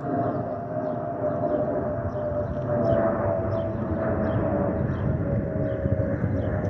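Airbus A320-232 passing overhead with the whistle from the fuel over-pressure protector (FOPP) vents under its wings: a steady, siren-like whistle that sinks slightly in pitch, over the low rumble of its jet engines.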